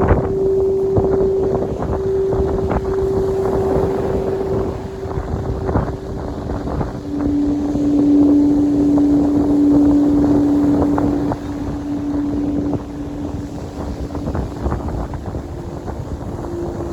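A sustained pure tone held for several seconds, giving way about seven seconds in to a lower sustained tone, over heavy wind buffeting the microphone.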